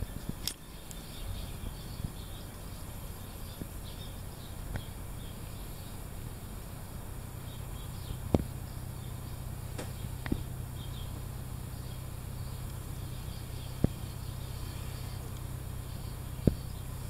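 Faint, high twittering of swallows flying outside, over a steady low rumble. A few sharp clicks stand out: one near the start, two around the middle, and two more towards the end.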